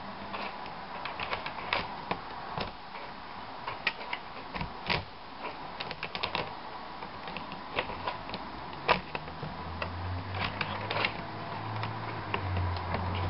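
Irregular light clicks and taps of a replacement laptop LCD panel and its brackets being handled and seated in the lid, small hard parts knocking together. A low steady hum comes in about ten seconds in.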